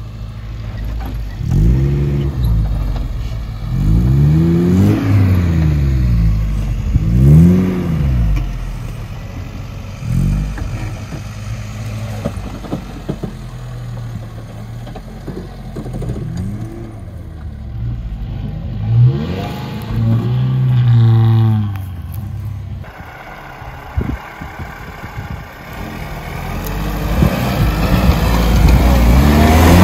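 Off-road SUV engines revving hard and dropping back again and again as they crawl over rough, steep ground, each rev rising and falling over a second or two. First it is a first-generation Suzuki Vitara. The revs ease for a few seconds, then build again near the end as a Lada Niva 4x4 takes the slope.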